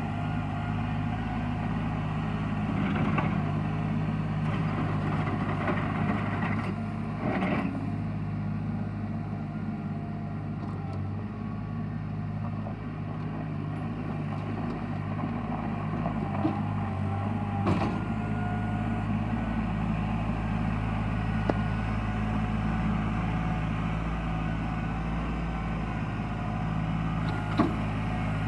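Kubota L3240 tractor's diesel engine running steadily as the tractor moves over gravel, with a few short knocks about a third and two thirds of the way through.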